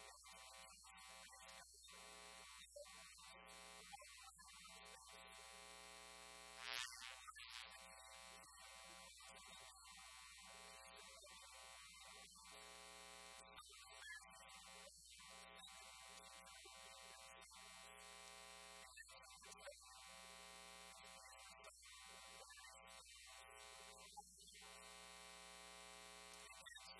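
Near silence: a faint, steady electrical hum with a buzz, with one brief faint noise about seven seconds in.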